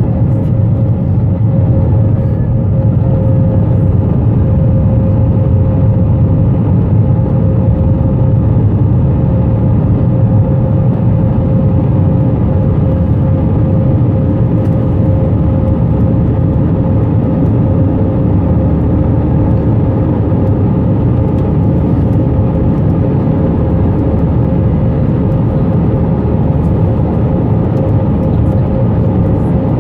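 Airbus A320 jet engines running at climb power, heard inside the passenger cabin as the aircraft climbs after takeoff: a loud, steady, deep rumble with a steady hum through it.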